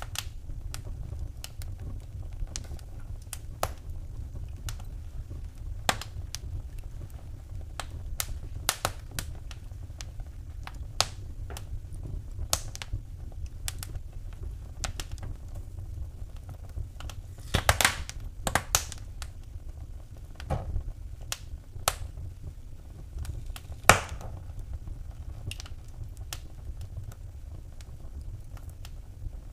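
Wood fire in a fireplace crackling, with irregular sharp pops and snaps over a steady low rumble. The pops come in a quick cluster a little past the middle, and one louder pop follows a few seconds later.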